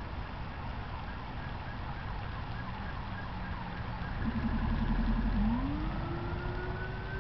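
Police car siren starting up: a short rapid pulsing tone about four seconds in, then a rising wail that holds high. Steady rumble of road traffic underneath.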